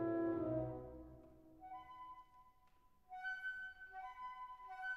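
Background music: a held chord dies away in the first second, then a light melody of short, repeated high notes begins and grows louder a few seconds in.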